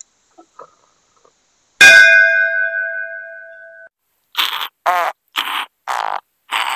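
An edited-in bell-like chime strikes once and rings out for about two seconds. Then a comic snoring sound effect follows in short rasping bursts, about two a second, over a sleeping character.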